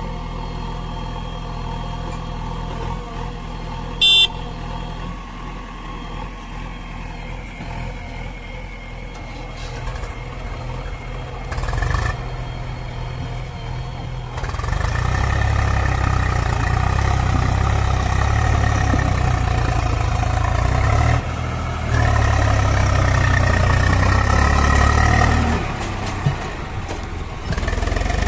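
Diesel engines of a JCB 3DX backhoe loader and a Swaraj 735 tractor running steadily, with a short high-pitched beep about four seconds in. About halfway through an engine revs up and runs loud for roughly ten seconds, dropping briefly once in the middle.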